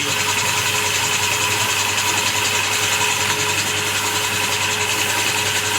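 A motor-driven machine running steadily: a constant hum with a high hiss over it.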